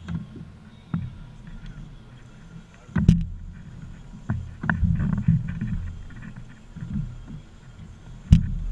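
Scattered knocks and clunks on an aluminum fishing boat as the crew moves about and handles gear, over a low uneven rumble; the loudest knocks come about three seconds in and near the end.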